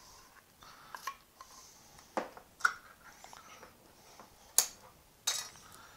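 A few scattered clinks and knocks of a metal soup can and utensil against a mixing bowl, as a can of condensed cream of chicken soup is emptied into it.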